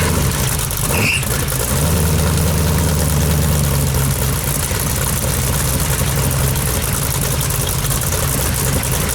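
383 V8 on an engine run stand, idling steadily while it warms up.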